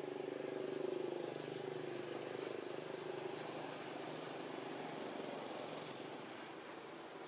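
A passing motor vehicle's engine drone, swelling about a second in and then slowly fading away.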